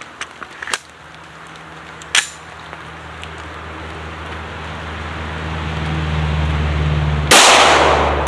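A few light clicks, one sharper about two seconds in, under a low steady hum that grows louder; about seven seconds in, a loud, sudden .45 ACP pistol shot.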